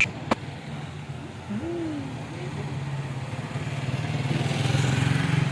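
A motor vehicle engine running steadily, growing louder over the second half and peaking near the end. There is a sharp click just after the start and a short rising-and-falling hoot-like tone a second and a half in.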